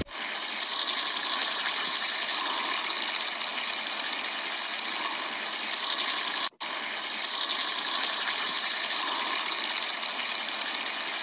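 Steady rushing noise, cut off briefly for a split second about six and a half seconds in.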